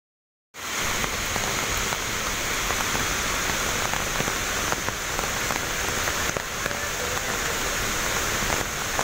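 Steady rain falling and pattering on leaves and rock, a dense hiss full of small drop ticks. It cuts in abruptly about half a second in, after a moment of dead silence.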